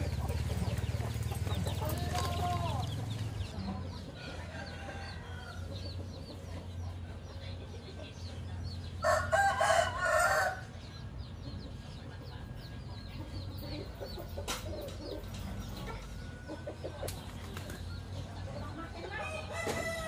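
A rooster crows once, loud, for about a second and a half about halfway through. Softer chicken clucks come and go around it.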